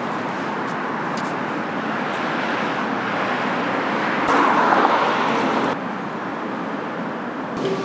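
Street traffic noise: a steady rush of cars that swells louder about four seconds in, then drops off abruptly a little before six seconds.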